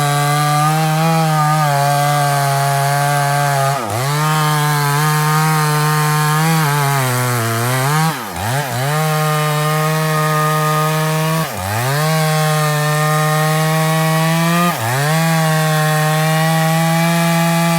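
Chainsaw running at high speed while cutting wood. Its pitch sags briefly and recovers several times, about every three to four seconds, most deeply about eight seconds in.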